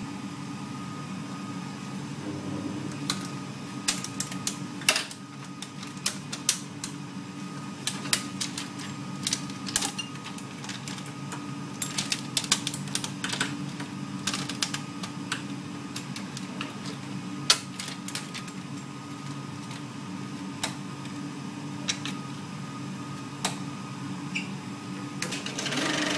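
Irregular sharp clicks and clacks as the pad-roller arms, gate and sprocket guards of a Cinemeccanica Victoria 5 35mm projector are opened and snapped shut by hand while film is threaded. A steady low hum runs underneath.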